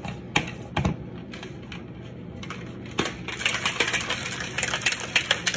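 Plastic shaker bottle being shaken to mix pre-workout powder with water: a fast, uneven run of rattling knocks starting about three seconds in. Two sharp clicks come before it as the lid is handled.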